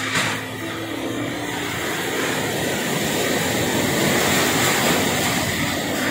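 Typhoon-force wind with heavy rain: a steady rushing noise that swells a little around the middle.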